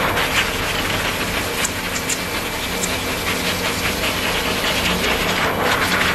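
Pet grooming blow dryer running steadily, a continuous rush of air with motor hum as its nozzle blows over a freshly bathed cat's fur.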